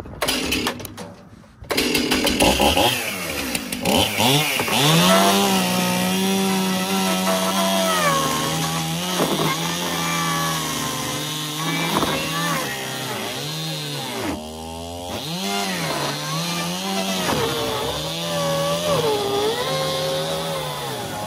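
Stihl two-stroke chainsaw comes up to speed about two seconds in, then runs at high revs cutting through a fiberglass boat hull. Its pitch dips and recovers again and again as the chain bites and bogs.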